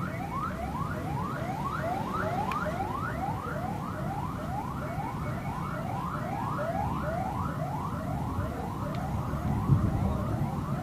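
An electronic siren or alarm repeating short rising whoops, about three a second, over a low steady rumble.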